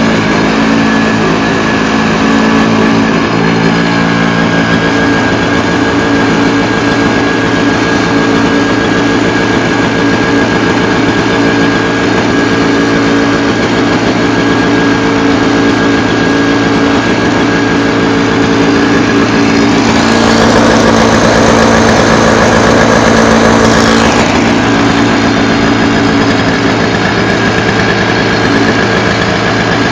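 Toro CCR2000E snowblower's small two-stroke engine running steadily after a cold start. About two-thirds of the way through it gets briefly louder and rougher, then settles back.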